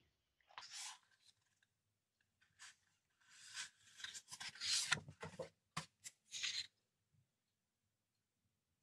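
Large 12x12 Maja Design scrapbooking paper sheets being handled by hand: they rustle and slide against each other, with a brief swish about half a second in and a longer stretch of rustling and a couple of sharp paper snaps in the middle.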